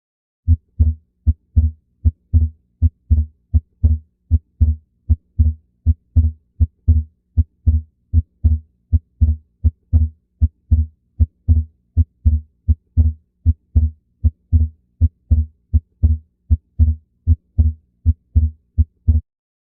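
Heart sounds heard through a stethoscope: a steady run of low thuds, close to three a second, over a faint steady hum. The run starts about half a second in and stops shortly before the end.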